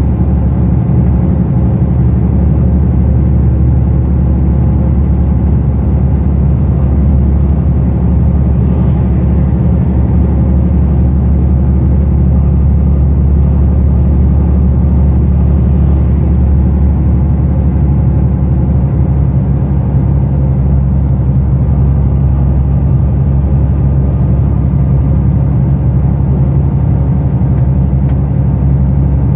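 Heavy truck's diesel engine running steadily while cruising, with tyre and road noise, heard from inside the cab as a constant low drone.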